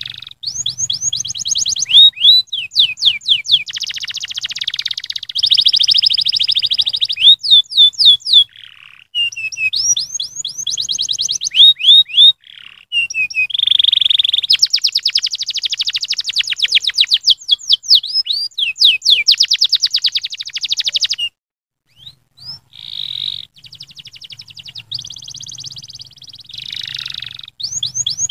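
Domestic canary singing: long runs of fast, high trills and rolls, with a short break about three-quarters of the way through.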